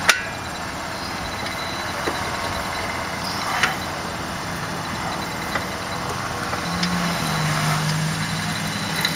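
Sharp metal clicks and knocks from a socket and breaker bar on a rear brake caliper bolt: a loud one at the start and another about three and a half seconds in, with a few fainter ticks between, over steady background noise. A low steady hum joins about seven seconds in.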